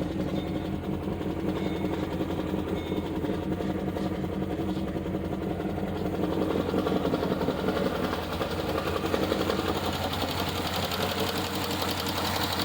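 Chevrolet Caprice PPV's 6.0-litre LS V8, fitted with a stage 2 cam, idling just after a cold start, with a fast, even ticking over the engine note. The owner places the ticking on the driver's side of the engine.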